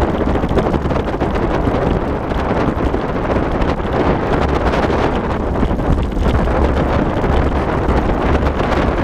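Steady wind buffeting the microphone over the continuous rolling trail noise of a four-dog sled-dog team pulling the musher at speed.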